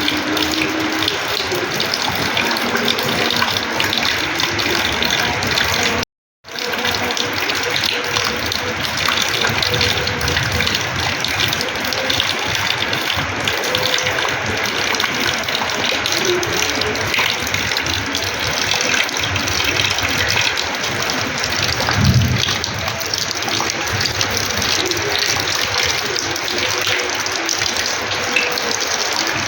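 Heavy rainwater pouring and splashing onto a terrace floor in a steady, dense rush. The sound cuts out completely for a moment about six seconds in.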